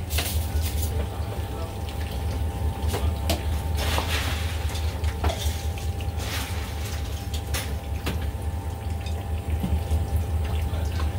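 Food stall kitchen sounds: scattered sharp clinks of chopsticks and utensils against bowls and metal pots over a steady low hum.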